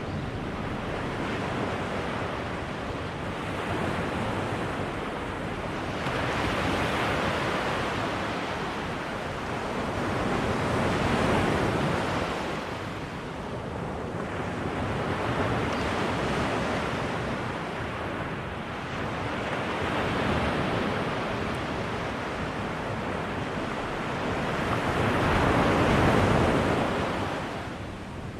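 Ocean waves breaking and washing on a beach. The surf swells and fades every four to five seconds, loudest near the end.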